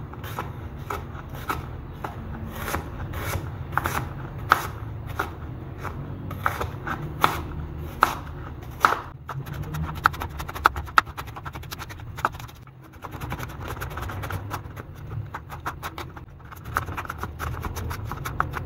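Chef's knife slicing red onions on a wooden cutting board: each stroke ends in a sharp tap of the blade on the board, at an uneven pace of about one to two cuts a second, with quicker, denser cutting near the end.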